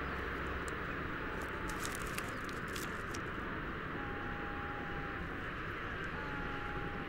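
Steady outdoor background hiss from an open field recording, with two faint held whistle-like tones, about four and six seconds in, each lasting around a second.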